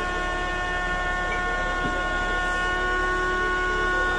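Vacuum tanker truck's pump running, drawing water out of the sunken fishing boat through a suction hose: a steady whine made of several fixed pitches over a low hum.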